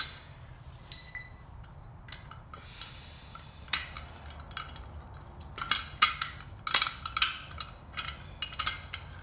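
Steel parts of a tractor 3-point hitch clinking against each other as they are handled and fitted together by hand: scattered metal clicks, busier about six to seven seconds in.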